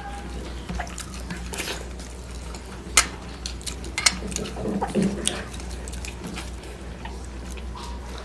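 Eating by hand: fingers squishing and mixing rice and curry against steel plates, with scattered wet clicks of chewing and a couple of sharper taps about three and four seconds in. A low steady hum runs underneath.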